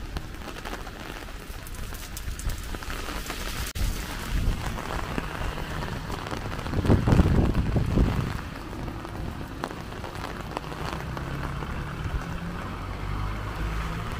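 Heavy rain falling on the street, a steady hiss. About seven seconds in, a louder low rush swells for a second or so, then fades.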